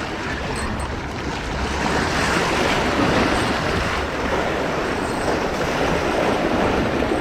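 Wind buffeting the microphone in a steady, rumbling rush, mixed with the sound of rushing water from the current at the pass.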